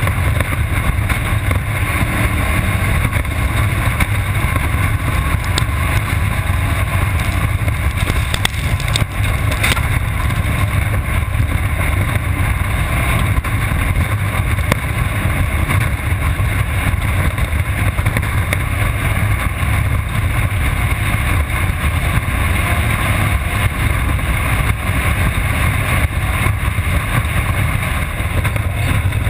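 Off-road race car's engine running hard and steady at speed, heard from a camera mounted on the car, with wind noise on the microphone. A few short knocks about six to ten seconds in.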